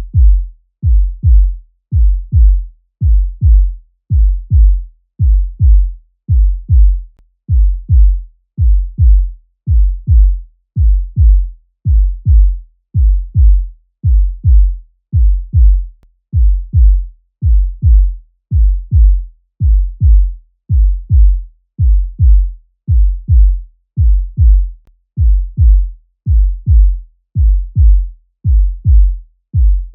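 Heartbeat sound effect: a steady double thump, lub-dub, repeating about once a second, deep and low with no higher sound over it.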